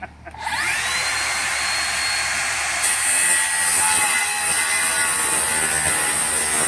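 Circular saw spinning up with a rising whine about half a second in and running free at speed, then biting into a pressure-treated 4x4 post from about three seconds in, louder and hissier as the blade cuts through the wood.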